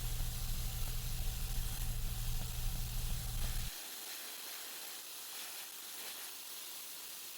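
Belt grinder running, its abrasive belt hissing as the slack part of the belt contours a stabilized maple knife handle. About halfway the low motor hum cuts out abruptly, leaving a quieter steady hiss.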